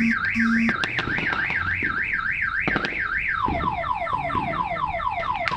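Car alarm siren sounding: a fast warbling tone, about three rises and falls a second, switching a little over three seconds in to a quick run of falling whoops, about four a second.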